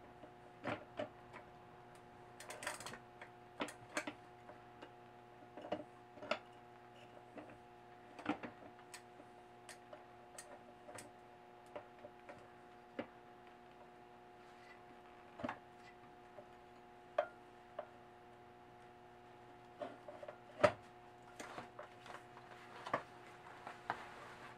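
Scattered small clicks and light knocks, irregularly spaced, as parts are handled and fitted at a moped's rear wheel hub and sprocket. A steady faint hum runs underneath.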